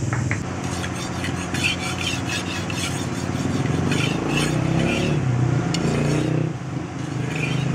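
Steel sickle blade being honed by hand on a sharpening stone: repeated scraping strokes of steel on stone, coming in groups, over a steady low hum.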